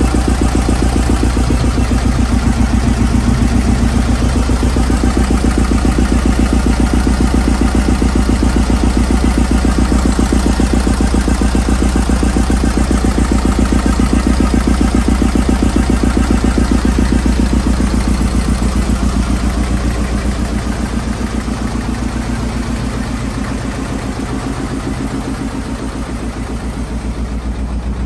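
Lister CE stationary engine driving a 5 kW generator, running steadily at constant speed with a rapid, even beat of firing strokes. It gets a little quieter in the last several seconds.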